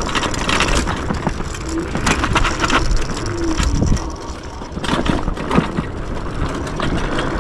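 Yume X11 electric scooter riding over a packed-dirt trail: tyres crunching over the ground, with frequent knocks and rattles from bumps.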